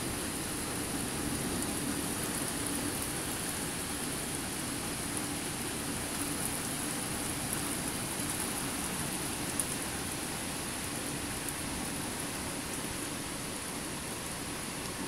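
Steady thunderstorm downpour, an even hiss of rain, with one sharp tick about two-thirds of the way through.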